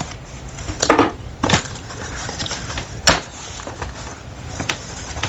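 Cardboard packaging being handled and opened: rustling with several sharp knocks and crinkles, about four of them spread through the stretch, with no vacuum motor running.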